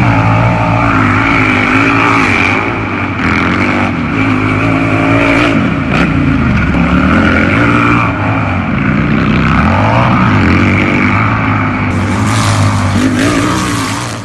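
Harley-Davidson motorcycle engine running loud and revving, its pitch dropping and climbing again a couple of times before it trails off at the very end.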